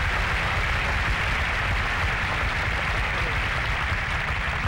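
Tennis crowd applauding a won point, a steady dense clapping.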